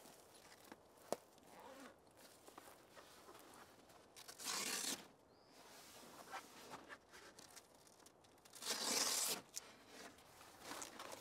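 A roof-rack awning's fabric travel cover being pulled open: two ripping pulls, each under a second long, about four seconds apart, with a small click about a second in.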